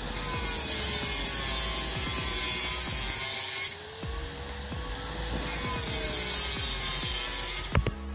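Electric power tool running with a steady whine whose pitch sags and recovers as it works, in two long stretches of cutting or sanding noise. A sharp knock comes near the end.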